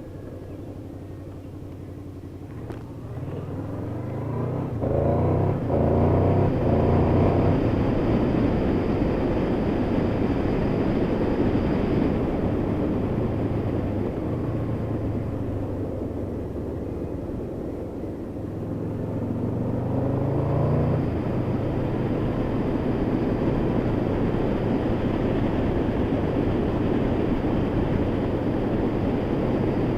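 Honda VFR800's V4 engine accelerating hard twice, its pitch climbing in short steps as it shifts up through the gears, then holding steady at cruising speed. Steady wind and road rush runs underneath.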